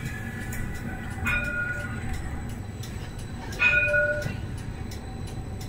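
Tram warning gong struck twice, about a second in and again near four seconds, each a short ringing chime that fades quickly. Under it is the steady low rumble of the tram running on street track.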